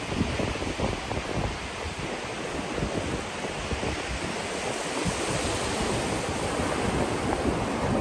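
Ocean surf: shallow waves washing in over the sand at the water's edge, with breakers farther out, making a steady rushing hiss.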